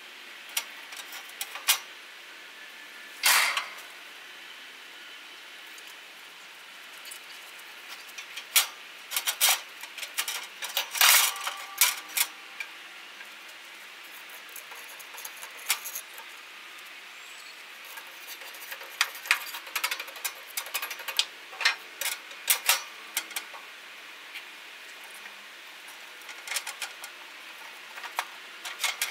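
Metal grilling tools clinking and scraping against the cooking grates of a gas grill, in scattered bursts with a longer, louder clatter about three seconds in.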